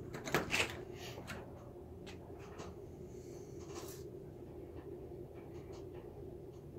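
Steady low electrical hum from running power equipment, overlaid by scraping, rustling and clicks of a handheld phone being moved about and footsteps, with the loudest cluster of clicks about half a second in.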